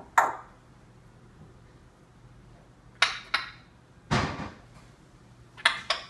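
Sharp clicks and knocks from an African grey parrot, six in all and irregularly spaced; the one about four seconds in is the heaviest and deepest.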